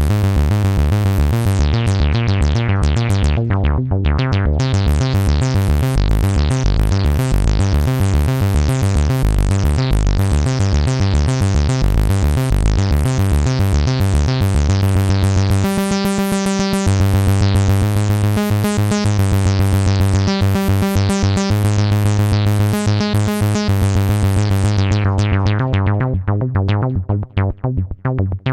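Modal Cobalt 5S virtual-analog synthesizer playing a fast repeating sequence of short pitched notes over a steady bass line. Near the end the high notes drop away and the pattern thins out into separate notes.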